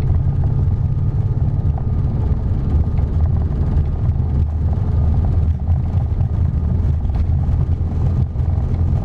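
Steady low rumble of an Airbus A340-300 on its takeoff roll, heard on board: the engines at takeoff thrust and the wheels running on the runway.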